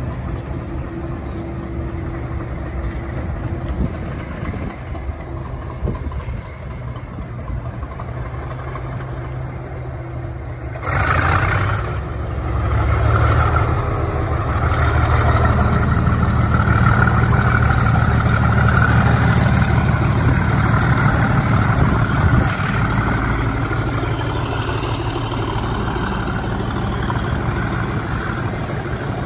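Class 37 diesel locomotive's engine running at low power with a steady drone, then opening up sharply about eleven seconds in, much louder, with a rising whistle over the engine note, as it hauls a rake of dead Class 365 units past at low speed.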